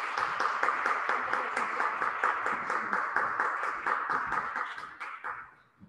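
Applause from a small audience, many separate hand claps in a large, reverberant church hall, dying away about five seconds in.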